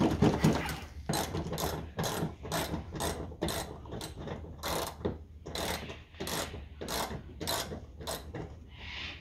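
Hand ratchet wrench clicking in quick, even back-and-forth strokes, about three a second, as a bolt is wound out.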